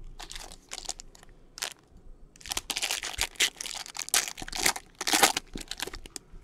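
Trading-card pack wrapper crinkling and rustling in a run of short bursts as it is handled and opened, thicker and louder from about two and a half seconds in.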